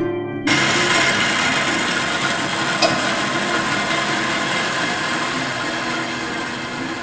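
Bandsaw running and cutting a 45-degree miter through a small piece of wood. It is a steady saw noise that starts abruptly about half a second in and slowly fades toward the end.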